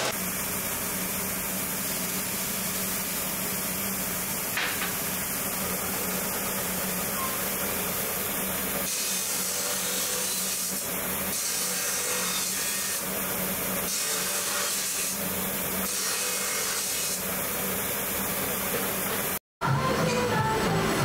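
Steady workshop machine noise, then from about nine seconds in an abrasive cut-off wheel running and cutting through a cast stainless steel ring tree, in repeated cuts of about a second each, with a high hiss that rises with each cut. The sound drops out briefly near the end and music starts.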